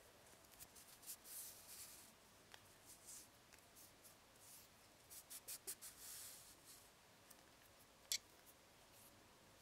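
Faint rustling of cotton thread being drawn through the double stitches on a tatting needle and worked between the fingers to close the ring, in a few short bursts, with one sharp click near the end.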